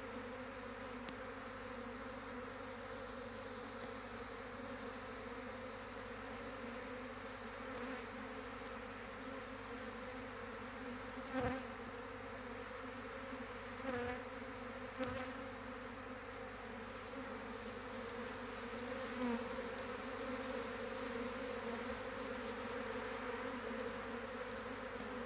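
Swarm of honeybees buzzing, a steady hum of many bees clustered and flying: a freshly issued swarm, the first of the season. Three brief bumps sound around the middle.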